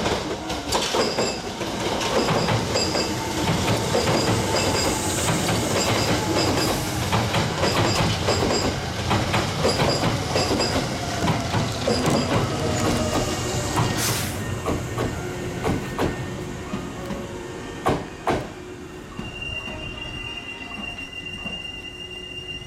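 Hankyu 7000 series electric train passing close over a level crossing, its wheels clattering over the rail joints, with the crossing's warning bell ringing at a steady beat. The passing fades, and a few seconds before the end a thin, steady high squeal sets in as the train brakes into the station.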